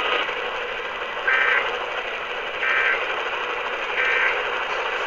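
Three short bursts of Emergency Alert System SAME digital data tones, about 1.3 s apart, over steady radio static hiss. Three brief bursts like this are the end-of-message signal that closes a weather radio alert.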